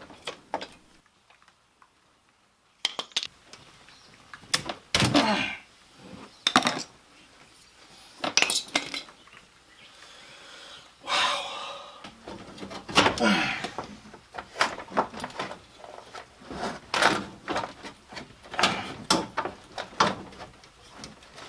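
Hand tools and metal parts clinking and knocking in irregular bursts during work on a car's front end, some strikes ringing briefly.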